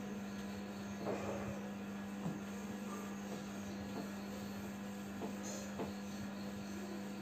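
A steady low electrical hum, with a few faint ticks and scratches now and then.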